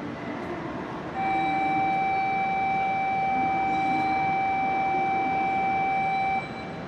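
Steady electronic departure warning tone at a Shinkansen platform, one high pitch held for about five seconds and then cut off sharply, over the hum of the H5 series train and station. It signals that the doors are closing and the train is about to pull out.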